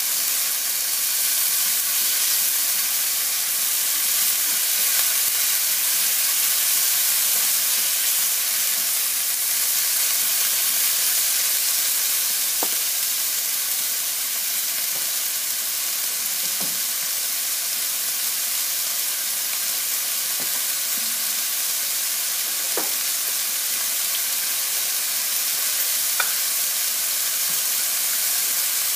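Diced chicken and ginger strips sizzling steadily in hot oil in a nonstick frying pan, with a few faint pops spread through.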